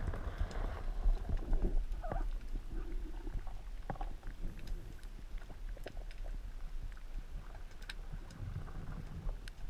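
Underwater ambience picked up by a camera in its housing: a steady low rumble of moving water with scattered short clicks and pops.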